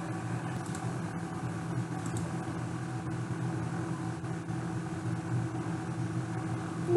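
Steady low machine hum from the room or computer, with a few faint clicks.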